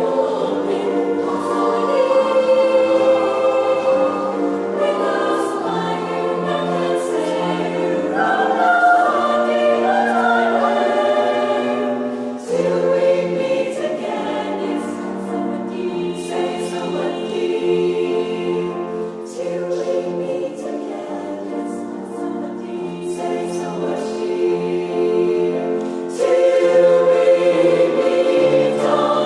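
A choir singing in parts, sustained chords with a moving melody line and short crisp consonant or percussive accents, swelling louder about 26 seconds in.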